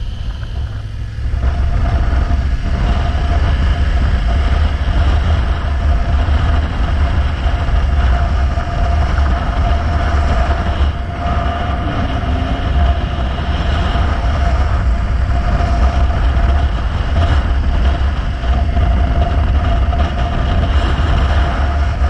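Motorcycle riding along a road, its engine running under a heavy low wind rumble on the camera microphone. A steady thin whine runs through it. The sound gets louder about a second in as the bike picks up speed.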